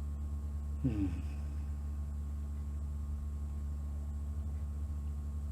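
Steady low hum with a few constant tones. About a second in, one brief voice-like sound falls in pitch, like a short murmur or sigh.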